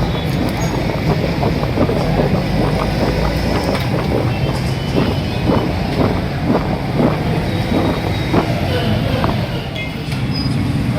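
Steady din of street traffic, with a run of sharp knocks, about two a second, through the middle.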